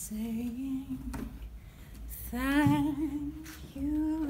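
A woman's voice holding long sung notes, low and steady; about two and a half seconds in one note wavers up and down.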